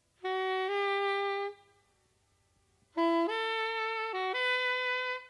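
Unaccompanied saxophone playing sparse jazz phrases: two notes held for about a second and a half, a pause of about a second and a half, then a phrase of four notes that climbs overall with one brief dip.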